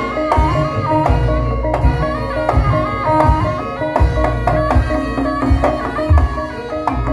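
Ebeg accompaniment music: a Javanese gamelan-style ensemble, with kendang hand drums beating and a melody of short ringing notes stepping up and down.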